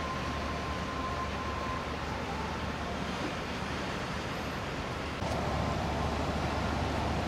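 Steady outdoor rumble and hiss: wind on the microphone over a low, distant engine and traffic drone. About five seconds in it turns slightly louder and hissier.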